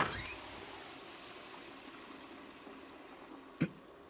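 Running water that fades away gradually, with one sharp knock near the end.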